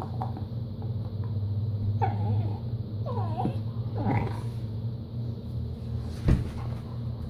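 A German Shepherd and a Treeing Walker Coonhound–Pit Bull mix growling steadily as they play-fight over a chew bone, with a few high whines around the middle and a single thump near the end.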